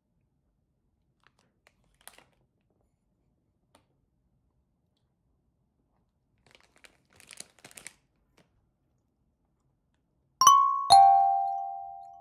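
A short rustle or crinkle, like packaging being handled, then a two-note falling chime near the end, ding-dong, with the second note ringing on and fading slowly.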